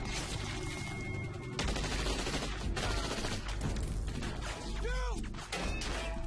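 Sustained rifle and shotgun fire in a firefight, many shots overlapping, growing louder about a second and a half in. A short yell rises over the gunfire about five seconds in.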